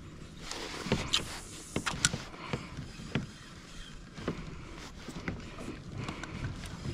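Irregular light knocks and taps with faint water noise, from gear being handled on a fishing kayak.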